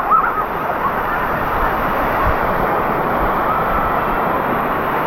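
Waterfall water rushing steadily and loudly, with a brief high-pitched voice at the very start.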